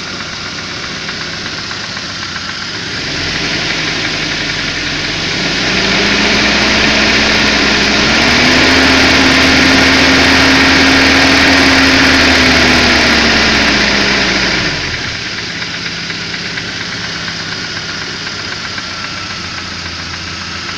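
ZMZ-405 inline-four petrol engine idling, then revved up in steps from about three seconds in, held, and let fall back to idle about fifteen seconds in. It carries a knock that the owner puts down to a worn piston pin in a connecting rod, showing while the engine warms up and the revs drop.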